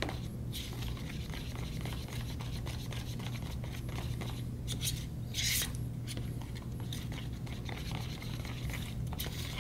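A spoon stirring and scraping inside a small plastic tub of dehydrated milk, mixed for homemade milk paint and worked to get the clumps out. Soft rubbing strokes, with two brief louder scrapes about halfway through.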